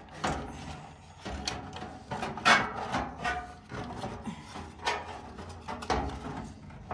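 Irregular knocks, clicks and scraping as the parts of a Duraflame electric stove heater are handled and fitted back together, loudest about two and a half seconds in.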